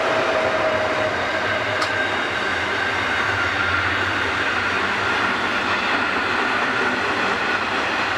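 Diesel-hauled freight train rolling past, a steady rumble of engine and wagon wheels on the rails, with a faint whine that slowly sinks in pitch.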